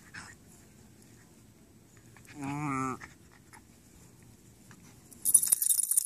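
Cairn terriers play-fighting. A little past halfway one gives a short wavering growl lasting about half a second. Near the end a dog shakes itself off, and its harness tags jingle loudly.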